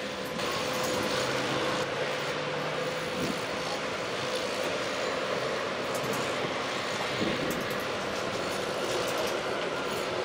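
Steady noise of heavy construction machinery at work, an even mechanical drone with a faint held whine.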